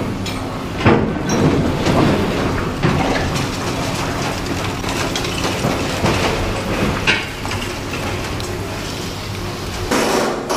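Demolition excavator with a hydraulic shear breaking and shifting concrete and brick rubble: repeated cracking, crunching and clattering of debris.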